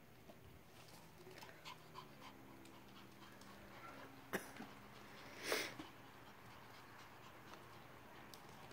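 Pomeranian dam and young puppies moving about on towels: faint scuffling and small clicks, with one short puff of breath from a dog about halfway through.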